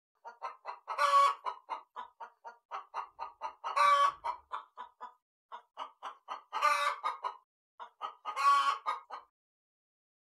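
Domestic hen clucking in a rapid, even series of about four clucks a second, broken four times by a louder, longer squawk; it stops a little before the end.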